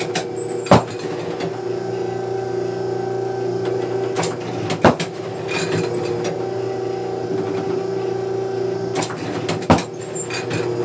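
Automatic clay-target trap machine humming steadily, with three sharp cracks about five seconds apart as targets are thrown and shot at. Each crack comes a moment after a lighter click.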